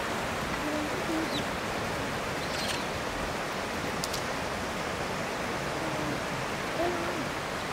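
Steady rush of flowing water, with a few faint, short pitched calls in the background.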